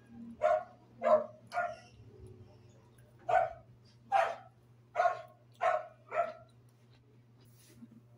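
A dog barking in two bouts: three short barks, a pause of about a second, then five more.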